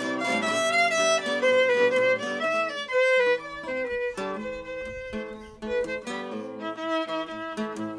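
Violin and classical guitar playing together: a bowed violin melody of sustained notes over a plucked guitar accompaniment. The playing softens around the middle and grows louder again near the end.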